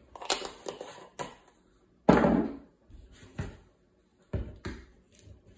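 Kitchen handling noise while a brine is mixed in a bowl: a series of knocks and clicks as ingredient containers are picked up and set down, with one louder, longer noisy sound about two seconds in.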